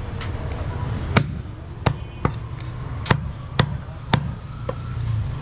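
Butcher's cleaver chopping goat meat on a wooden chopping block: about seven sharp knocks at an uneven pace, roughly one every half second to second, over a steady low background rumble.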